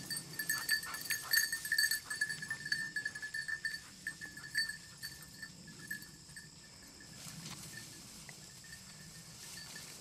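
A bell on a bird dog's collar jingling in quick, irregular strokes as the dog runs, fading to occasional faint rings after about five seconds.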